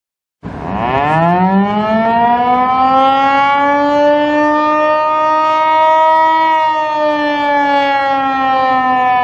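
Outdoor warning siren winding up from a low pitch to a steady high tone about half a second in, then holding it with a slight sag in pitch.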